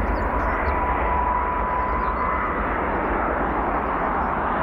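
Airbus A330-200 airliner's twin jet engines running steadily as it flares and lands on its main gear. A steady whine in the engine noise fades out about halfway through.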